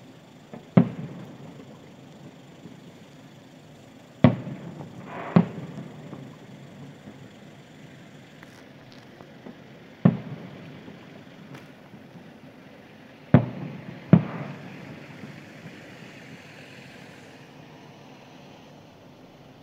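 Aerial firework shells bursting at a distance: six sharp bangs at irregular intervals, two of them in quick pairs, each trailing off in an echo.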